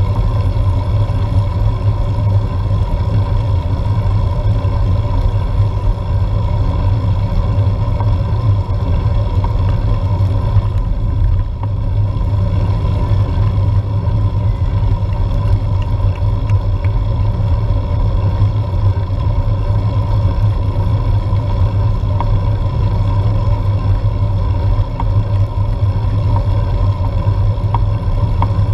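Steady low rumble of road and tyre vibration and wind from a road bike climbing on tarmac, picked up by a bike-mounted GoPro Hero4, with a faint steady hum above it.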